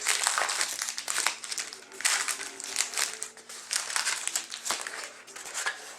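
Plastic wrapping crinkling and crackling in quick, irregular bursts as a box of hockey trading cards is opened and its packs handled.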